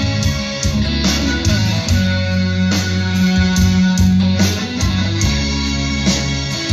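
Instrumental rock music with electric guitar, bass and a steady drum beat, played through a concert sound system.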